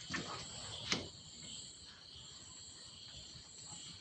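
A spoon knocks and scrapes against the pan twice, about a second apart, as thick broken-wheat upma is stirred, then goes quiet. A steady high chirring of crickets runs underneath.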